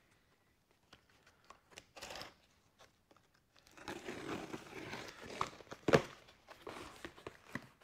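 Cardboard box being opened: a blade slitting the packing tape and the flaps pulled apart. It starts about three and a half seconds in after near quiet, with a sharp snap around six seconds in.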